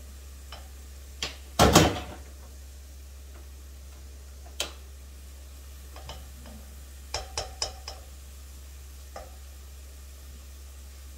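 Cooking utensils knocking and scraping against a coated cooking pot while stirring: scattered clicks and knocks, the loudest about two seconds in, and a quick run of four clicks around seven seconds in.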